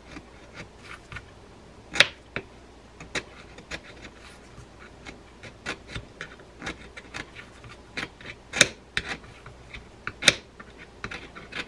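The flat tip of a screwdriver scraping paint off a small metal drag washer from a fishing reel: irregular short scrapes and clicks, with sharper ones about two seconds in and twice near the end.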